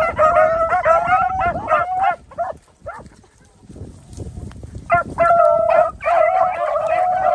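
A pack of beagles giving tongue, several hounds baying and chopping over one another as they run a scent line. The cry breaks off for about two seconds in the middle, then picks up again.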